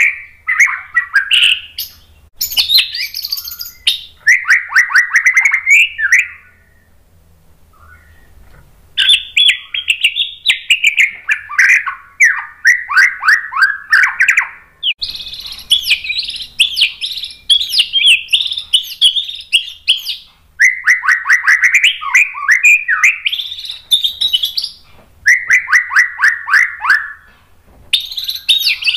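White-rumped shama (murai batu) singing in long, varied phrases of rapid whistled and trilled notes. There is a pause of about two seconds after the first phrases, and shorter breaks between the later ones.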